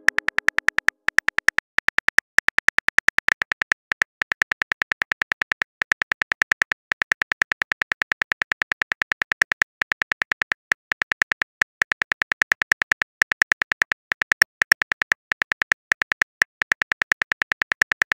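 Smartphone on-screen keyboard click sounds in a fast, even run, several short clicks a second, as a message is typed out letter by letter.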